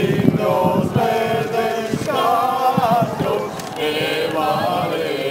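A small crowd singing together in unison, unaccompanied, with long held notes.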